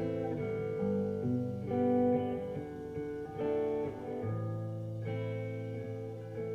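Recorded music played back on a hi-fi system driven by a Pioneer M-22 power amplifier and C-21 preamplifier: an instrumental passage of strummed and plucked guitar chords over a sustained bass line, with no vocals.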